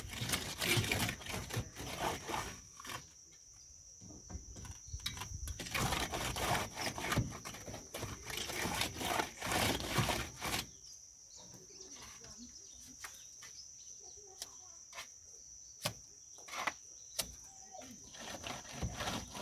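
Wooden plastering float rubbing over fresh mortar: rough scraping strokes in two long spells, the second from about six to ten seconds in, then quieter with scattered sharp clicks and taps. A steady high-pitched tone runs underneath.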